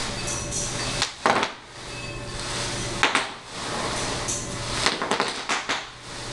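Bubble wrap crackling and popping under wheelchair wheels rolling across the sheet, with a few loud sharp pops about a second in and again about three seconds in. A steady low hum runs underneath and stops about five seconds in.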